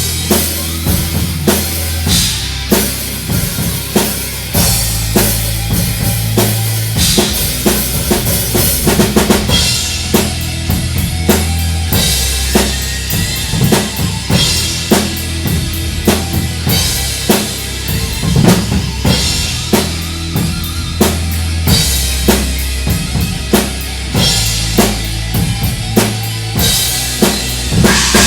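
Heavy metal music driven by a drum kit: kick drum and snare in a steady beat over sustained low bass notes that shift every few seconds.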